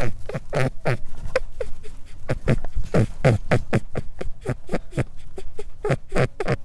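Guinea pig squeaking: a rapid, unbroken run of short squeals, several a second, each dropping in pitch.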